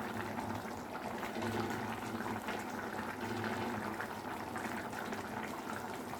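Thick bottle gourd and tomato curry simmering in a pan, a steady bubbling with faint small pops as the finished curry cooks down, its oil risen to the sides.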